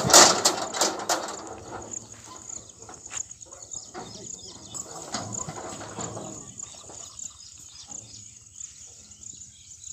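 Steel-bodied bullock cart and its yoke knocking and rattling as the bullocks are handled, loudest as a clatter of several knocks in the first second, then lighter scattered knocks. A steady high drone of crickets runs underneath.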